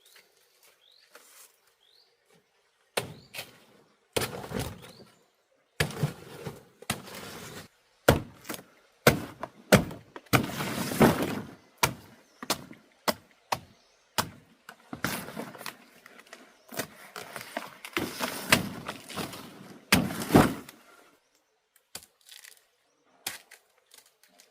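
A run of irregular knocks and thuds, some sharp and some followed by a second or so of rustling or crackling. They begin about three seconds in and stop a few seconds before the end.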